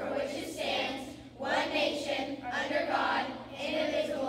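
A class of children reciting the Pledge of Allegiance together in unison, phrase by phrase with short breaks between.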